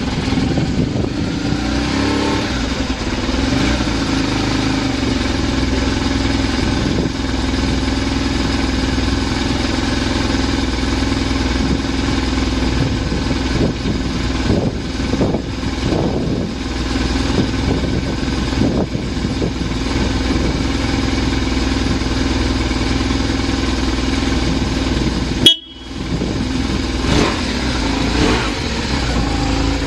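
BMW R1100RS air/oil-cooled flat-twin (boxer) engine idling steadily after a cold start, running evenly with no abnormal noises. About 25 seconds in there is one sharp, loud click.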